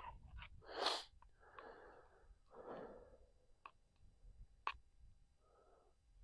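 Faint breaths and eating sounds from a man eating instant noodles out of a small pot, with a few short puffs of breath and two light clicks of the fork against the pot.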